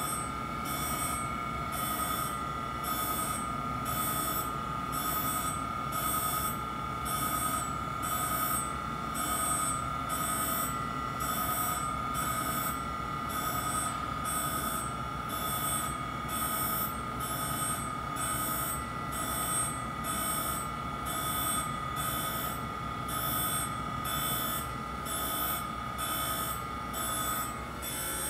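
Mitsui MSG-200 surface grinder running: a steady whine from the spinning wheel, with a grinding hiss that swells about once a second as the reciprocating table carries the steel block back and forth under the wheel.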